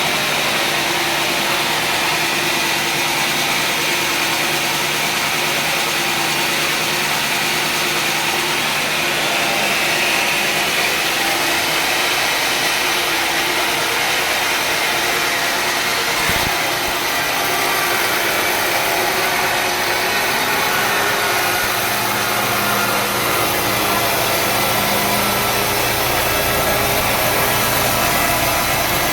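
Sawmill running: a steady engine and saw drive making a continuous mechanical hum and whine, with a short click about halfway through and a lower hum joining in the last several seconds.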